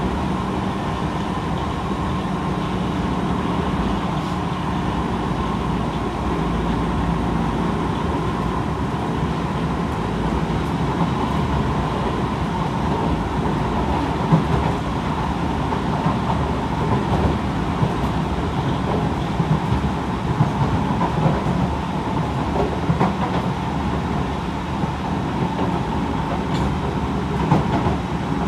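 Kawasaki C151 metro train running between stations, heard from inside the carriage: a steady rumble of wheels on rail with a steady tone from the train's motors, and short sharp wheel clacks that come more often in the second half.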